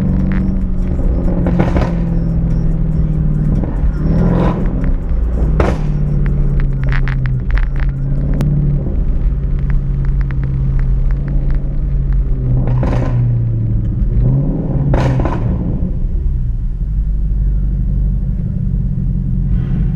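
Exhaust of a Jaguar XF that is straight-piped from the catalytic converters back, droning loudly under way, its pitch shifting several times as the revs change, with sharp pops and a quick run of crackles about seven seconds in.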